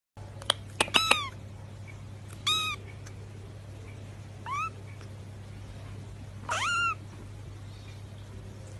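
Young tabby kitten mewing four times, short high-pitched mews a second or two apart, the last one the longest, while being stroked. Two small clicks come just before the first mew, and a steady low hum runs underneath.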